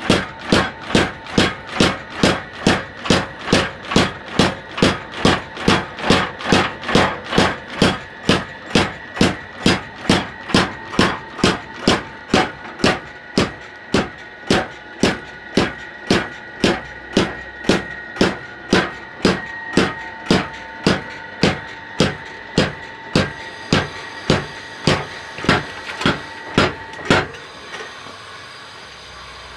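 Homemade power hammer striking a hot cut chisel into a red-hot steel leaf spring: steady, evenly spaced metallic blows about two a second over a sustained metallic ring. The blows stop near the end.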